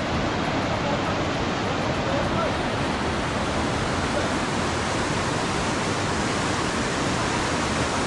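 Fast-flowing stream water rushing steadily, a loud, even hiss of running water.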